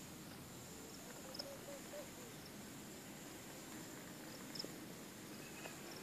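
Faint outdoor ambience: a steady high-pitched hum with a few short, high chirps scattered through it.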